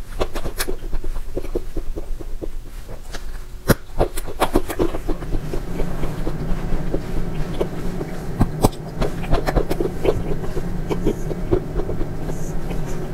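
Close-miked eating: biting into and chewing a small mahjong-tile-shaped dessert piece, with irregular wet smacks and clicks of the mouth. A low steady hum comes in about five seconds in.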